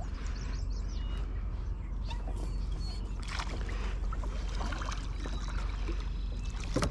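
Water sloshing and trickling around a plastic kayak, over a steady low rumble, with a brief louder surge of splashing a little after three seconds in.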